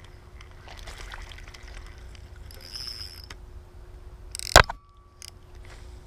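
Faint handling noise from a spinning reel being wound by hand, over a low, steady rumble, with one sharp knock about four and a half seconds in.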